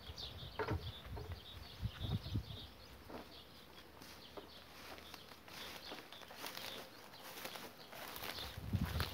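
Faint outdoor ambience: scattered rustles and light knocks, with low thumps in the first couple of seconds and faint high bird chirps.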